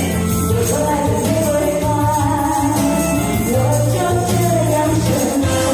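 A woman singing a pop ballad into a handheld microphone over a karaoke backing track played through PA speakers.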